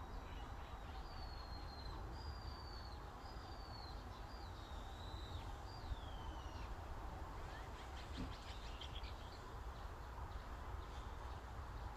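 Forest birdsong over a steady low breeze rumble: a bird whistles a run of about five high, clear notes, several sliding downward, then a quicker chatter of calls follows past the middle.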